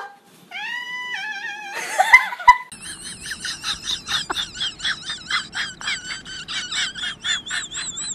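A cat meows briefly near the start. From a couple of seconds in, a dog whines in a high, wavering pitch, repeated about three to four times a second without a break.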